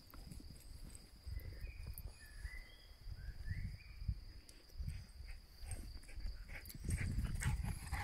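A dog's paws thudding over grass as it runs a fetch, growing louder as it comes back close in the last second or so. Field crickets chirr steadily and high throughout.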